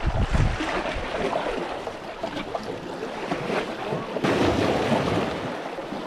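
Small sea waves washing and splashing against a rocky breakwater, with wind buffeting the microphone in the first half second and the wash growing louder about four seconds in.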